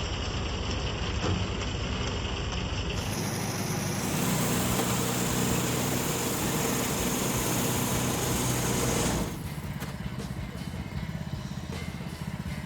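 Sawmill engine running steadily. About three seconds in the sound turns louder and hissier, and about nine seconds in it drops abruptly quieter as the engine runs on.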